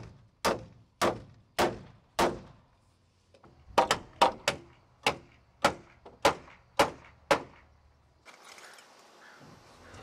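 Hammer driving nails into a 2x6 wooden rafter: sharp, ringing blows about two a second, a pause of about a second and a half, then a second run of blows that stops about seven seconds in. A faint steady hiss follows near the end.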